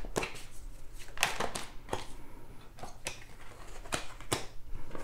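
Tarot cards being drawn from a hand-held deck and laid down on a wooden table: a series of short, sharp papery clicks and slides, about eight in all.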